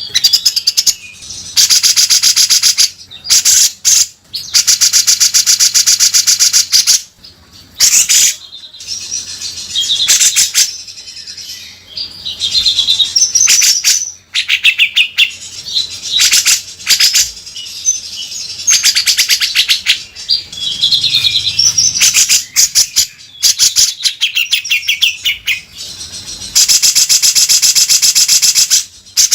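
Grey-cheeked bulbul (cucak jenggot) singing loudly in harsh, rasping buzzy rattles of one to three seconds each, repeated again and again, with short whistled notes between them.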